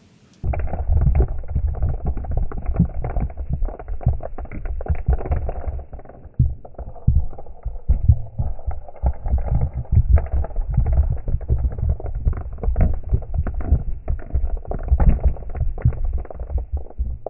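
A handful of metal dice clattering down a leather dice tower into a velvet-lined tray, slowed down into a long run of low, dull knocks over a deep rumble.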